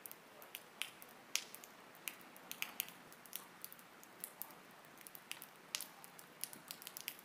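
Faint, irregular scattered clicks and crackles, several a second and uneven in strength, over a low steady hiss.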